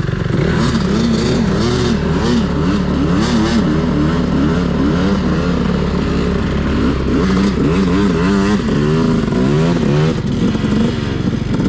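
Off-road engines revving up and down over and over: a dirt bike running close by and a quad bike working its way up a steep, muddy ditch bank.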